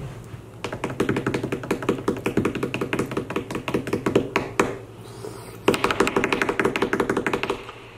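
Drum roll of rapid taps in two runs, with a short break about five seconds in and the second run louder.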